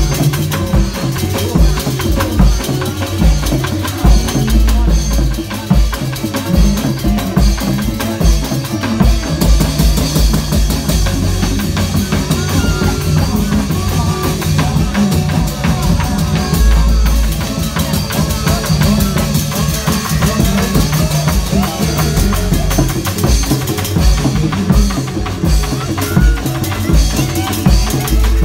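Drum-led Reog Indramayu music playing loud with a steady, driving beat of heavy bass hits and sharper snare-like strikes. A wavering melody line sits above the drums.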